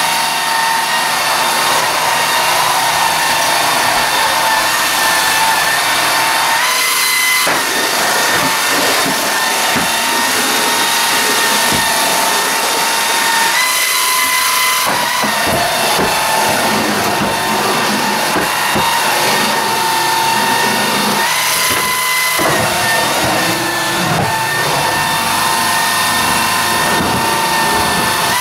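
Swiffer stick vacuum cleaner running, with a steady high motor whine and rushing air. Three times the whine briefly steps up in pitch and the lower rumble drops away, then settles back.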